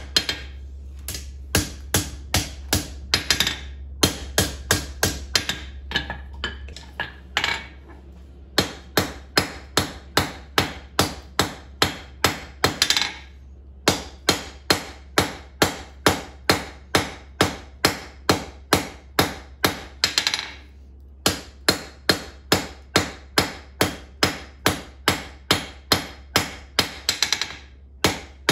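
Blacksmith's hammer striking a red-hot steel tong blank on an anvil, about two or three ringing blows a second in runs of several seconds with short pauses between. The smith is rounding off the corners of the tong reins.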